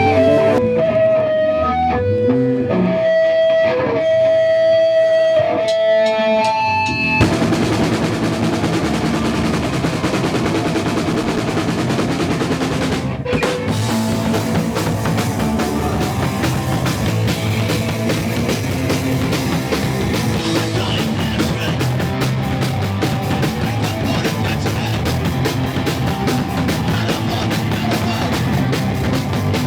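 Punk band playing live: a guitar rings out sustained single notes, then the full band with drums and distorted guitar comes crashing in about seven seconds in and plays on.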